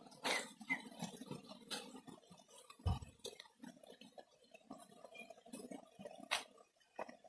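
Quiet footsteps on a stony dirt road: irregular small crunches and clicks of grit and pebbles underfoot, with one dull thump about three seconds in.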